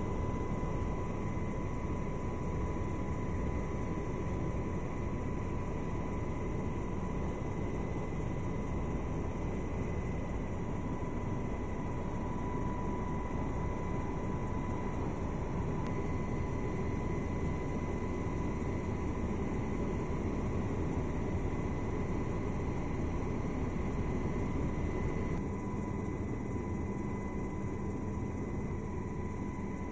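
Helicopter in flight heard from on board: a steady, dense rush of engine and rotor noise with a constant high-pitched whine above it. About 25 seconds in the noise eases slightly and a low steady hum comes in.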